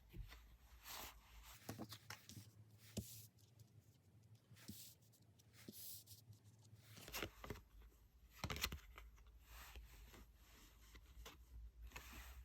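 Faint rustling and sliding of tarot cards being handled, with scattered soft taps and scrapes, one louder swish about eight and a half seconds in.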